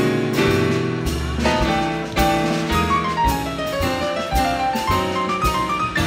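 Jazz combo playing an instrumental passage: piano over bass and drums. In the second half a run of notes steps down and then climbs back up.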